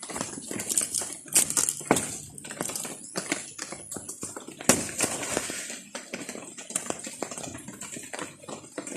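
Goats tearing at and chewing banana leaves: irregular crackling, snapping and rustling of the leaves with sharper clicks scattered through.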